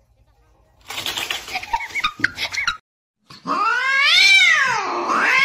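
A cat's long, loud meow that rises and falls in pitch and swells again near the end, a cat cry played back to call a pet cat. Before it come a couple of seconds of scuffling noise with a few short chirps.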